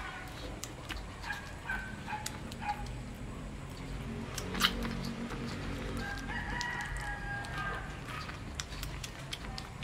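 Shih Tzu puppy eating raw meat from fingers, smacking and licking in a string of small wet clicks. A rooster crows in the background partway through.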